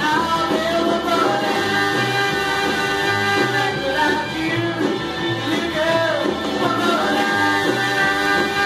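Snarling garage rock playing from a 7-inch vinyl single on a turntable: a sung vocal line over a band with a steady, repeating bass line.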